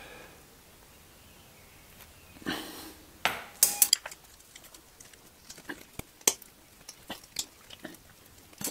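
Metal hooks being worked off the ends of a bungee cord, clinking and clicking. There is a short scrape about two and a half seconds in, a quick cluster of sharp clicks just after, then scattered single clicks.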